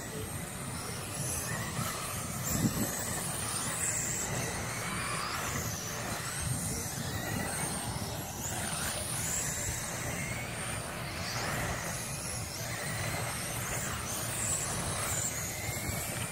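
Radio-controlled dirt-oval sprint cars racing past, their motors giving high-pitched whines that rise and fall as they circle the track. A single thump about three seconds in.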